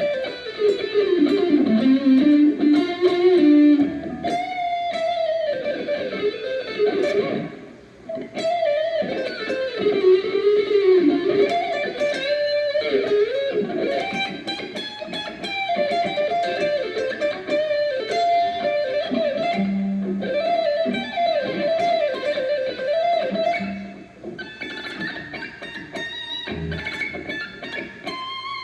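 Morris Hurricane guitar being played solo in a sound check: a single-note melodic line with pitch bends and vibrato, easing briefly about eight seconds in and again near the end.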